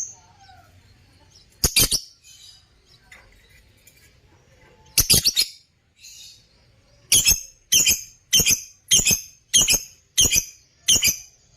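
Parblue lovebirds calling with loud, high-pitched chirps: a couple of separate calls, then a steady run of about seven sharp calls spaced a little over half a second apart in the second half.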